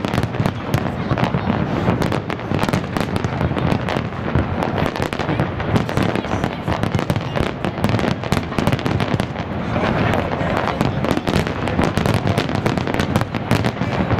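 Aerial fireworks display: a dense, continuous barrage of shell bursts, bangs and crackle, many a second with no pause.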